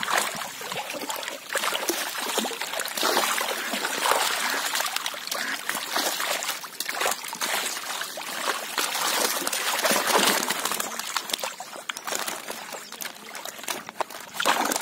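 Water splashing and sloshing irregularly as a crowd of fish thrash in the shallows inside a drawn-in fishing net, with hands and a plastic basket scooping through the water.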